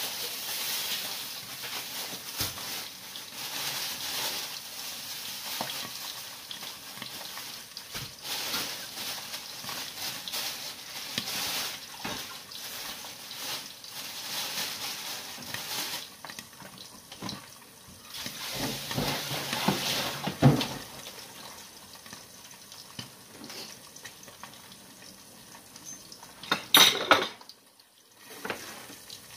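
Tap water running into a kitchen sink while things are washed in it, with dishes and utensils clattering. The water runs steadily for the first half, then it breaks into knocks and clatter, with a sharp knock and a loud short splash-like burst near the end.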